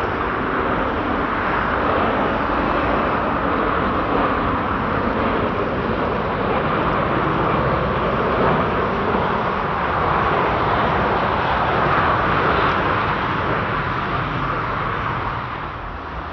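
Jet airliner's engines at takeoff power, a loud, steady rush of engine noise that eases slightly near the end.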